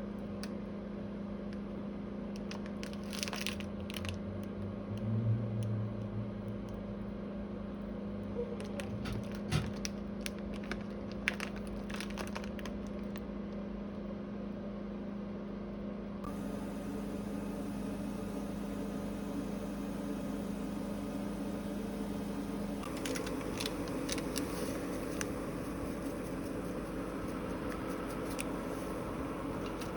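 A steady electrical hum with scattered clicks and light clatter; the sound shifts abruptly twice, about halfway in and again later.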